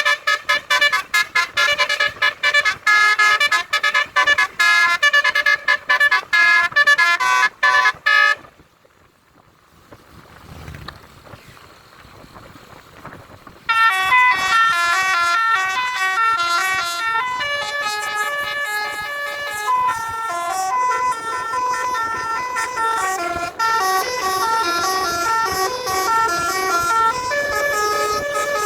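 Basuri telolet multi-tone vehicle horns playing melodies. Fast, choppy notes come first, then a pause of about five seconds, then a longer tune of stepping notes.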